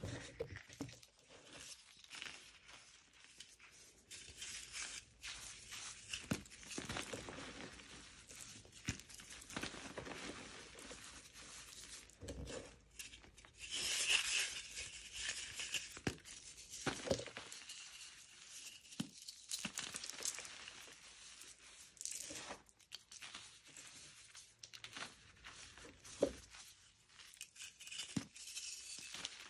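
A dyed, pasted gym chalk block crushed between the fingers, crumbling and crackling dry into powder in irregular bursts, with a louder stretch about halfway through.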